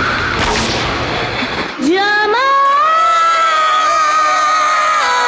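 A noisy rush of sound, then about two seconds in a high voice slides up into one long held sung note with a slight waver, over music.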